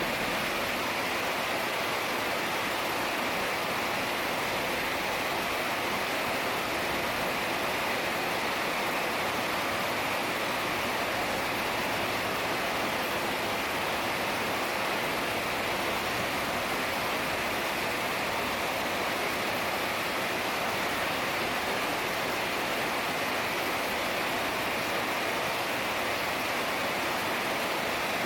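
Heavy rain falling in a steady, even downpour, with no breaks or separate drops standing out.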